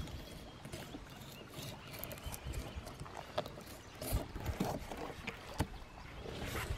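Knife cutting into a fish laid on a plastic cooler lid: scattered crackles and scrapes of the blade through scales and skin, with a few sharper knocks.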